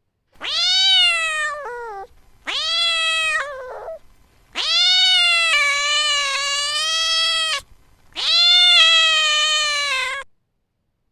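Domestic cat meowing: four long, drawn-out meows, each rising in pitch at the start and falling away at the end. The third is the longest, about three seconds.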